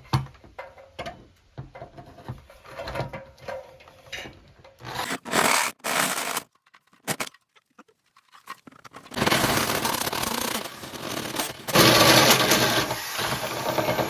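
Power drill cutting the vent hole through a shipping container's corrugated steel wall. It runs in short scraping bursts, pauses, then grinds steadily and loudly through the metal over the second half, throwing metal chips.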